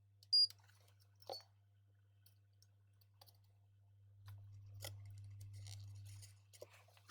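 Small parts and tools being handled on a workbench: a sharp click with a brief ringing clink, a second click about a second later, then a few faint clicks. Under them is a steady low electrical hum that gets louder for about two seconds in the second half.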